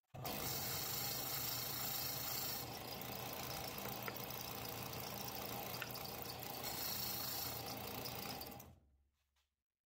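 Benchtop disc sander switched on, running steadily as a wooden dowel is held against the spinning sanding disc to sand and square up its end, then switched off about nine seconds in and winding down.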